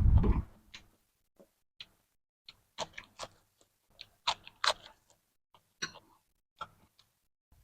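Close-miked eating sounds: scattered short clicks and wet smacks of chewing, with a brief louder low rush right at the start.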